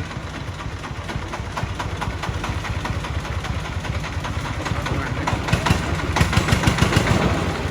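Diesel engine of a work vehicle running with a rapid, regular low beat, getting louder over the last few seconds.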